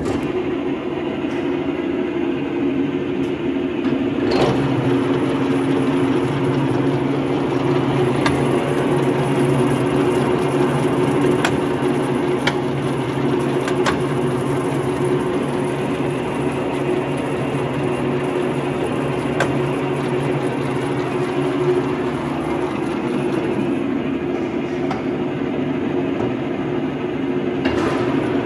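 Macson 18-inch centre lathe switched on and running with a steady mechanical whir. The running note changes about four seconds in and again about 22 seconds in, with a few sharp clicks along the way.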